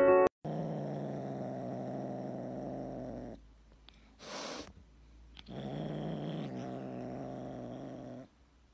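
Tabby kitten purring close to the microphone in two long stretches of a few seconds each, with a short breathy rush of noise in the pause between them.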